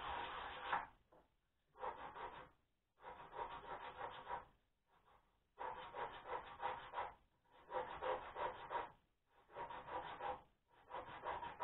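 Pine being worked by hand at the bench: rough rasping strokes in bursts of about a second each, roughly seven of them with short pauses between.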